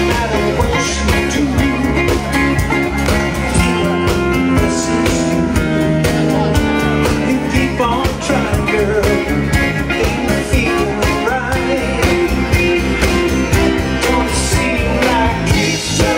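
Live band playing a rock-and-blues song: guitar over a steady drum beat, with singing.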